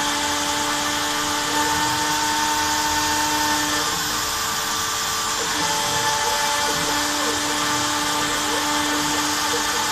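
Homemade CNC router's rotary-tool spindle running steadily with a V-bit cutting into particleboard, while the stepper motors driving the axes whine in steady tones that start and stop several times as the machine moves.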